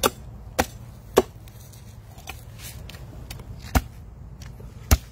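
Chinese cleaver chopping through the head of a large mutton snapper into a wooden cutting board: five loud chops at uneven intervals, with a longer pause in the middle and a few light taps between.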